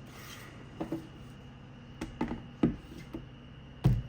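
Irregular knocks and taps of a ratchet set's box being handled, about seven in all, with the loudest thump near the end.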